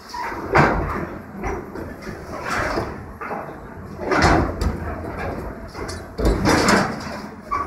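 An excavator's hydraulic demolition shear crushing and dragging scrap steel pipes and tanks. It gives a series of loud crunching, screeching bursts of bending metal about every second or two.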